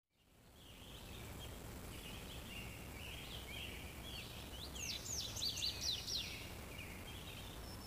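Outdoor ambience of birds chirping and singing over a low steady rumble, fading in at the start, with a louder run of quick sweeping chirps around the middle.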